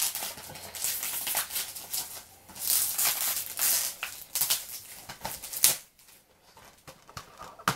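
Plastic wrapping crinkling and tearing as a Blu-ray case is unwrapped by hand, in uneven rustling runs that die down about six seconds in, followed by a single sharp click near the end.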